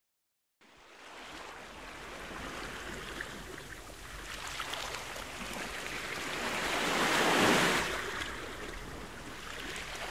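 A rushing, surf-like wash of noise that fades in, swells to a peak about seven seconds in and eases off again.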